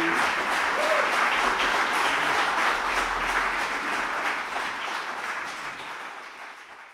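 Audience applauding, steady at first, then fading out over the last few seconds.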